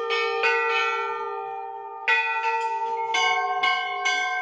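Hanging temple bells struck one after another, each strike ringing on under the next. After two strikes and a short lull, a quicker run of strikes begins about two seconds in, about two a second.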